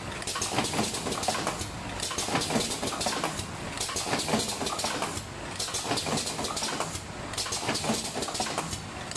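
Automatic rotary cartoning machine running, its indexing carousel and carton-forming stations making a steady mechanical clatter of rapid clicks and knocks.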